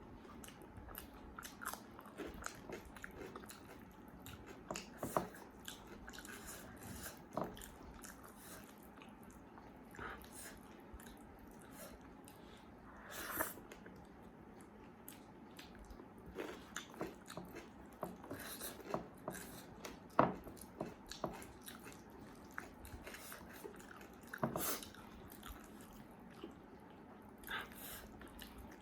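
A person chewing and eating a meal close to the microphone: irregular wet mouth clicks, smacks and occasional crunches.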